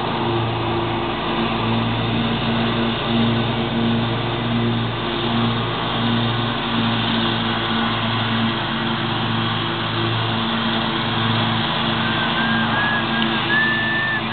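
Commercial stand-on lawn mower engine running steadily under load while mowing, its drone pulsing slightly. Near the end a run of short, high whistle-like notes sounds over it.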